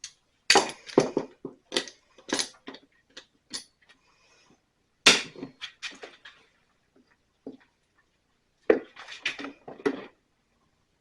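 Metal hand tools clattering and knocking against one another in three bursts of sharp clanks, as when rummaging through a toolbox.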